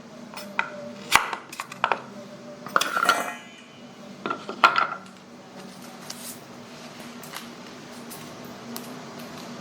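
Kitchen utensils clinking and knocking against dishes: a handful of sharp clacks over the first five seconds, two of them with a short metallic ring. After that there is only a low steady hum with a few faint taps.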